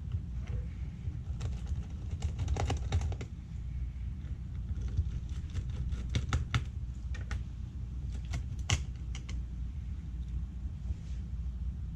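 Scattered light clicks and taps of hands working on a laptop's plastic and metal parts, in small clusters, over a steady low hum.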